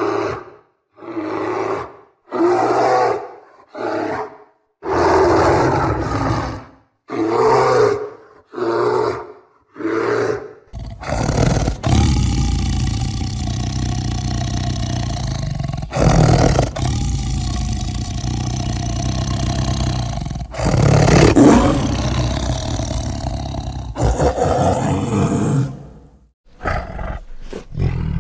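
Big cat roaring: a run of separate calls about a second apart, then a long continuous roar broken by a couple of short pauses.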